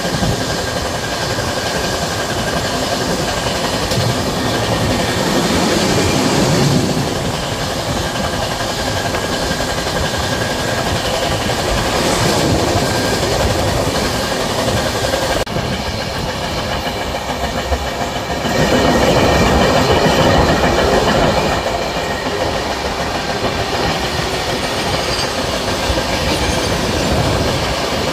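Passenger express train running at speed, heard from inside a coach: a steady rumble and rush of the wheels on the rails. It swells louder about five seconds in, and again for a few seconds from about nineteen seconds.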